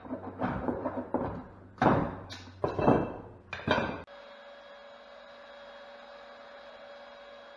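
Hand hacksaw sawing in short strokes for about four seconds, with a few heavier knocks among them. Then the sawing stops and only a steady electrical hum is left.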